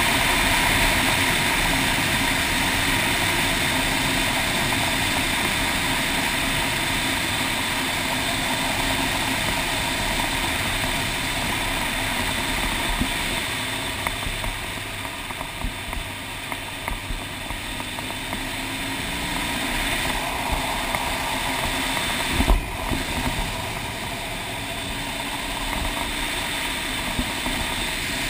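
Motorcycle engine running with wind rush over the camera on a gravel road, with small ticks of stones. About 22 seconds in comes a single sharp thump, the sound of a bird striking the bike.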